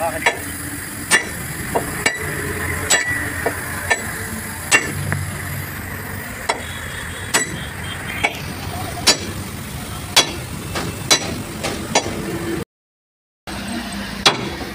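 Sledgehammer blows, metal on metal, on a long steel bar held against the underside of a tipper truck's body, about one sharp strike a second.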